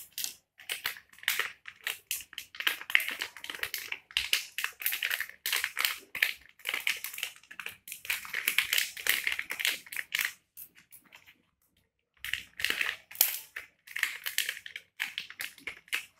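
Metallised antistatic bag crinkling and crackling as it is handled and torn open by hand, in dense crackly runs with a short pause about two thirds of the way through.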